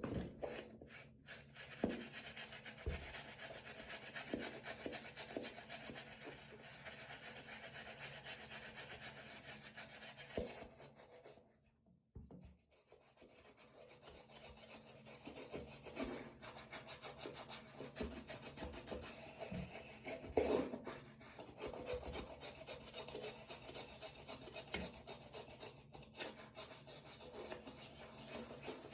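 Stiff brush scrubbing a wet sneaker in fast back-and-forth strokes, stopping briefly about twelve seconds in, with a few louder knocks among the strokes.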